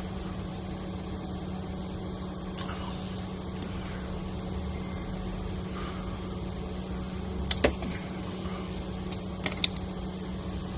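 A steady low engine hum, like a vehicle idling, with a few sharp clicks about seven and a half and nine and a half seconds in.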